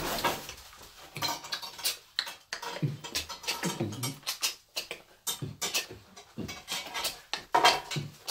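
A hyacinth macaw's wing flaps as it lands on its perch, then hand play with its owner: an irregular run of sharp clicks mixed with a few short low sounds that slide in pitch, typical of macaw-and-owner beatbox play.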